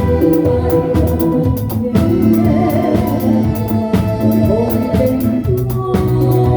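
Live band of drum kit, bass, guitar and keyboards playing through a song, with a steady cymbal beat over sustained keyboard and bass notes.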